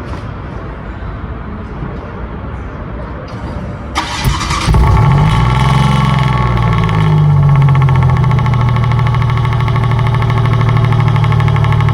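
Car engine starting: the starter cranks briefly about four seconds in, the engine catches and its revs flare up, then it settles into a steady idle.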